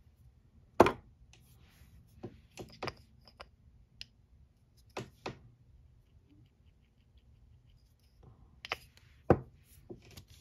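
Short sharp clicks and knocks of nail-stamping tools (a stamper, a scraper and a metal stamping plate) being handled and set down on the work mat, a dozen or so scattered through, the loudest about a second in and another near the end.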